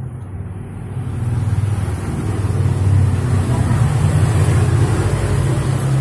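Washing-machine wash motor being test-run on mains power after its broken winding lead was rejoined: a low steady hum that swells about a second in and holds.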